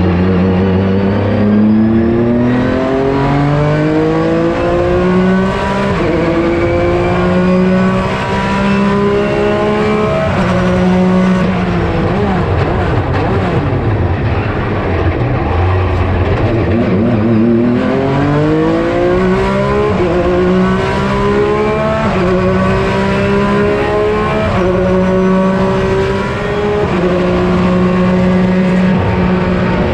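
Porsche 996 GT3 RSR racing flat-six engine at full throttle, pulling up through the gears with sharp upshifts. About halfway through it falls in pitch through a series of downshifts under braking, then accelerates hard again with three more upshifts.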